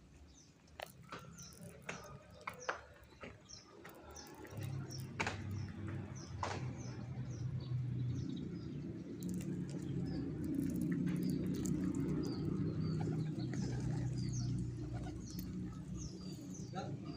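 Flock of pigeons cooing, the low cooing building up from about four and a half seconds in and carrying on, over frequent short high chirps, a few sharp clicks and wing flaps.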